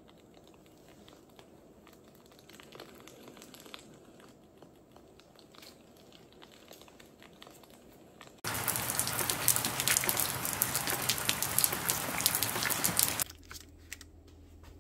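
Faint quiet stretch with a few light taps, then a loud, dense crackling sizzle that starts suddenly about eight and a half seconds in and cuts off about five seconds later: sauce frying in a pan.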